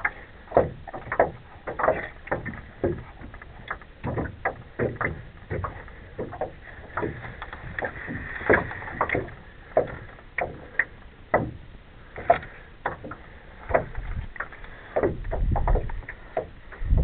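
A northern pike being worked free of a nylon landing net in the bottom of a small boat: irregular knocks, taps and rustles of hands, net mesh and fish against the hull, with a low rumble near the end.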